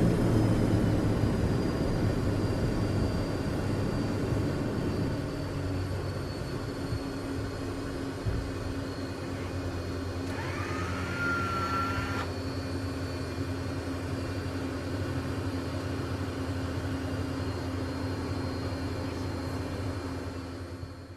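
Learjet jet noise heard inside the cabin. It is loud at first, eases off and falls in pitch over the first few seconds, then settles into a steady hum. A short rising whine comes about halfway through.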